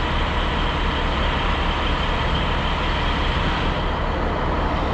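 A vehicle engine idling steadily, an even rumble with no change in speed.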